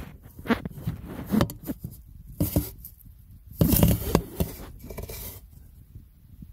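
Intermittent metal clinks and scrapes, about one every second, of bolts and hand tools being handled while turbo mounting bolts are fitted.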